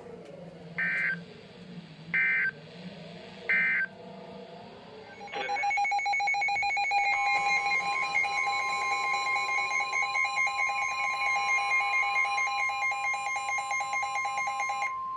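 NOAA Weather Radio: three short bursts of digital data tones about a second apart, the end-of-message code closing a tornado warning. About five seconds in, a weather radio's alarm starts sounding in rapid pulses, and a couple of seconds later the steady single-pitch warning alarm tone of the next tornado warning joins it.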